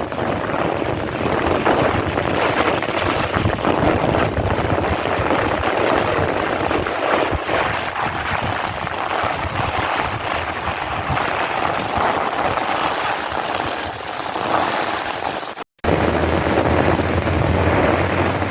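Heavy monsoon rain pouring down with strong wind gusting across the microphone in a dense, steady rush. The sound cuts out for a moment near the end, then carries on.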